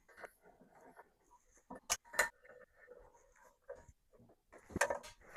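Handling of a metal TV mount bracket and its hardware: scattered light scrapes and taps, with two sharp clicks about two seconds in and another knock near the end.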